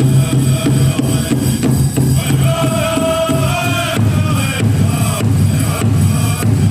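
Powwow drum group playing a contest song: a big drum struck in a steady, even beat while the singers chant. The voices are strongest from a couple of seconds in until about the middle.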